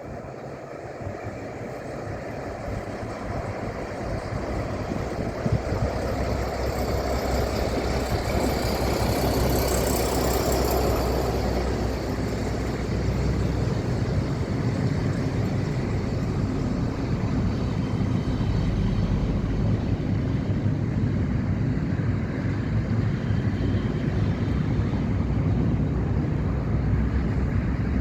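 A train approaching and running past. Its engine's low drone grows louder over the first several seconds and then holds steady, with a brief high hiss about ten seconds in.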